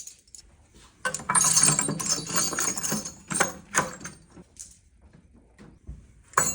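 Small metal tools clattering and jangling as they are handled for about two seconds, followed by a few short knocks.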